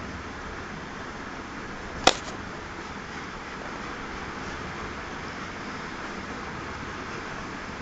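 Steady background hiss with a single sharp knock about two seconds in.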